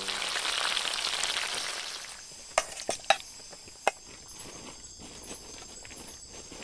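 Food sizzling in a hot pan for about two seconds, then three sharp knocks, with a steady high drone of insects behind.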